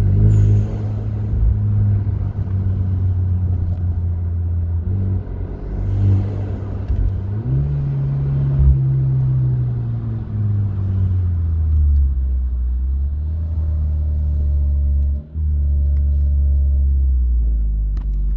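Hyundai Genesis Coupe's engine and exhaust in a parking garage, rising in revs and easing back off several times, then a steady low drone.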